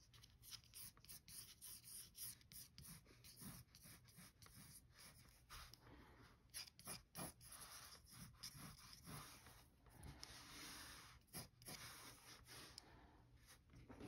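Faint scratching of a mechanical pencil's lead on drawing paper, in many short, light sketching strokes.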